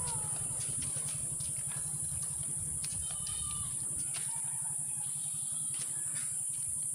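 Motorcycle engine running with a fast low pulsing that fades about four seconds in, under a steady high hiss, with a few faint bird chirps about three seconds in.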